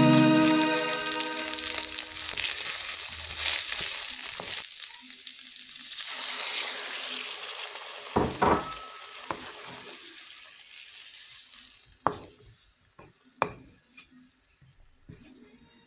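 Chicken pieces frying and sizzling in a hot non-stick pan while being stirred with a wooden spoon. Water poured in about six seconds in makes the hiss swell, and it then dies down. Near the end there are a few sharp knocks of the wooden spoon against the pan.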